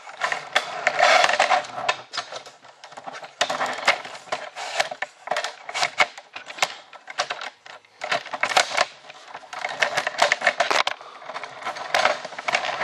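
Irregular clicking and rattling of hard objects being handled, with sharp clicks coming several times a second in uneven clusters.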